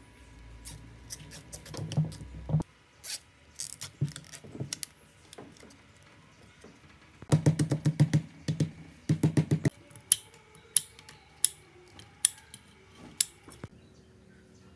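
Small plastic-headed mallet tapping rapidly on the rewound copper windings of a motor stator, in two quick runs about halfway through, to press the coil ends into shape. Handling and rustling of cable ties and wire leads comes before it, and a few separate sharp clicks follow near the end.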